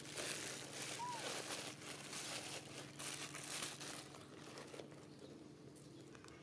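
Rustling, crinkling noise close to the microphone for about four seconds, then quieter, with one short high squeak about a second in.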